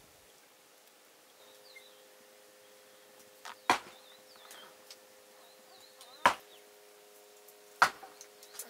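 Three sharp chopping blows, irregularly spaced about two seconds apart, with faint bird chirps between them.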